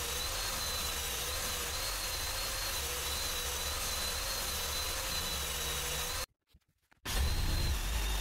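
A power tool's small motor running steadily with a faint high whine. It cuts off suddenly about six seconds in and starts again just under a second later.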